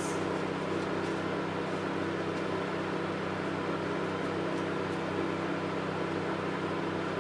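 Steady, even hum of a diode laser hair removal machine's cooling system running while the laser is not firing, with a brief rustle near the start.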